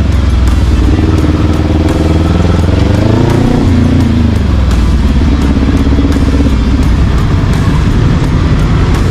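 Kawasaki Z400 parallel-twin engine running loud and steady, its revs rising and then dropping back about three seconds in.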